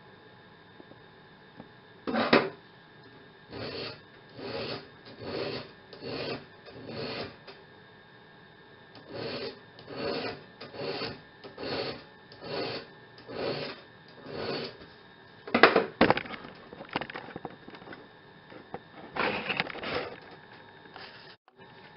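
Hand file rasping in even strokes, about one a second, on the end of a steel band saw blade, shaping it for the brazed joint, with a few louder knocks of handling.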